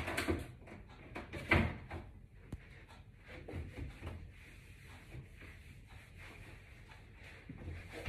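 Knocks and bumps against a wooden TV cabinet as it is wiped down, the sharpest about a second and a half in, with softer knocks and rubbing after.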